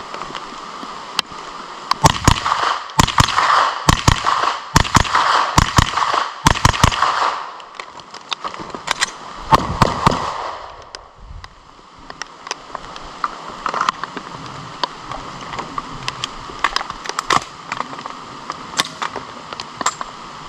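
Gunfire: a CZ Scorpion Evo 3 9mm submachine gun fires a quick string of shots, about two or three a second, for some five seconds. A short cluster of 9mm pistol shots follows around nine to ten seconds in. After that, fainter sharp reports come sparsely.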